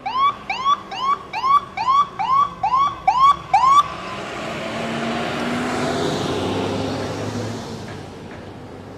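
Emergency vehicle siren sounding short rising-and-falling whoops, about two a second, which stop about four seconds in. A vehicle then passes, its engine and tyre noise swelling and fading away.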